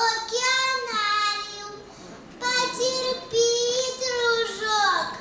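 A young girl singing unaccompanied into a microphone, in phrases of long held notes, with a short break about two seconds in.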